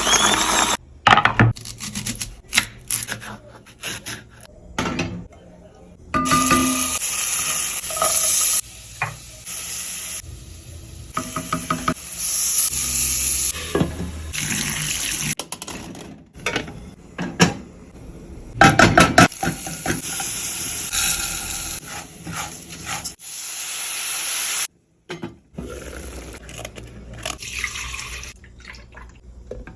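Kitchen cooking sounds in many short cuts: running water, pots, dishes and utensils knocking, and stirring.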